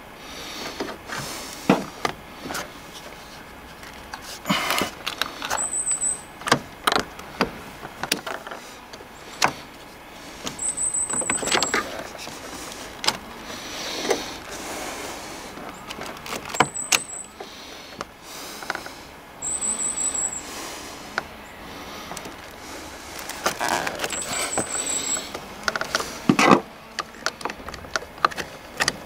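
Hands working on a car battery in the engine bay: irregular plastic clicks, knocks and scraping as the battery's covers and terminal fittings are handled. Short high-pitched chirps come five times among them.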